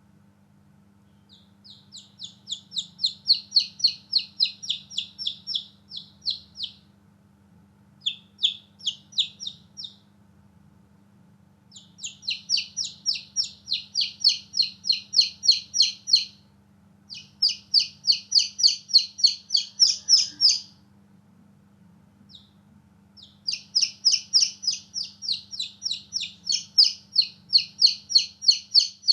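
Newborn baby chicks peeping: rapid, evenly spaced high peeps about four a second, in bouts of a few seconds broken by short pauses.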